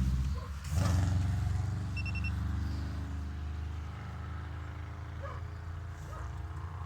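Volkswagen Golf IV 1.9 TDI diesel engine idling steadily, with a short dip and a sharp bump in level about a second in, then slowly getting quieter. A brief high electronic beep sounds about two seconds in.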